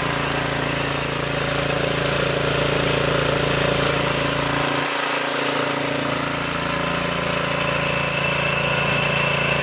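Troy-Bilt Pony rear-tine tiller's single-cylinder engine running at a steady idle.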